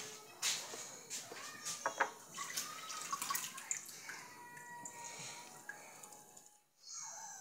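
Water splashing into a stainless-steel kitchen sink as a brush and cloth are scrubbed and rinsed under it, with light clicks and knocks against the sink. The water sound drops out briefly near the end.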